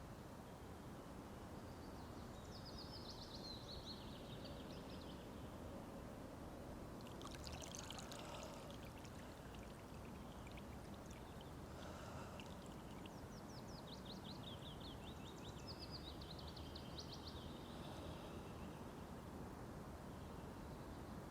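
Small birds singing in short high phrases, one of them a fast run of falling notes about two-thirds of the way in, over a steady low rushing of water.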